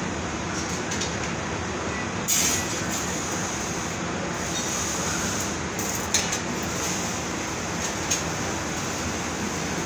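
Steady machinery and ventilation noise on a metal fabrication shop floor, with a short burst of hiss about two seconds in and a few sharp metallic clinks later on.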